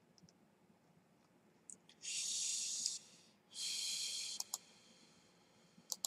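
Two hissing noises, each about a second long, starting and stopping abruptly, followed by a few light clicks.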